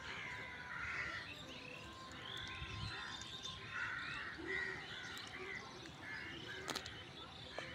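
Birds calling and chirping, many short overlapping calls, with a single sharp click near the end.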